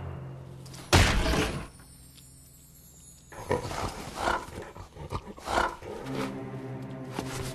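Cartoon sound effects: a loud, sudden roar about a second in, then a few short animal-like grunts, and music coming in near the end.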